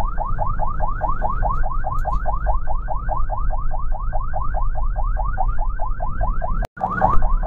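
Ambulance electronic siren in a fast yelp: rising sweeps repeat about six or seven times a second over a low engine and road rumble. It cuts out for an instant near the end and comes straight back.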